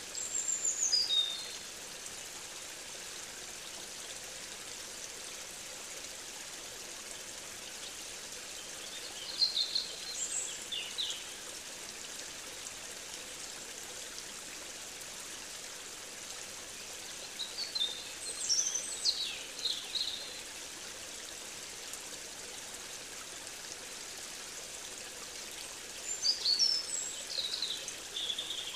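A songbird sings a short phrase of high, quickly falling notes four times, about every eight or nine seconds, over a steady hiss of running water.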